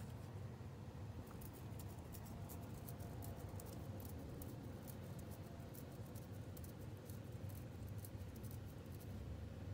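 Faint, quick ticking and scratching from a pet hedgehog's claws and quills on a terry towel, starting about a second in and going on until near the end, over a low steady hum.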